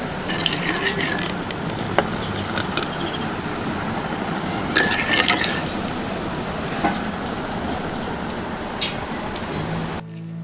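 Light clinks of a metal ladle and knife against a ceramic bowl and wooden plates while sauce and liver are served, a few at a time over a steady background hiss. Music starts near the end.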